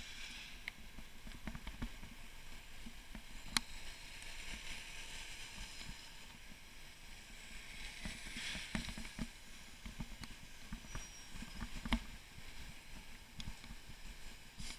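Bicycle rolling over cobblestone paving: an irregular low rattling and knocking from the bike and its camera mount, with a hiss of surrounding traffic behind. Two sharp clicks stand out, one about three and a half seconds in and one near twelve seconds.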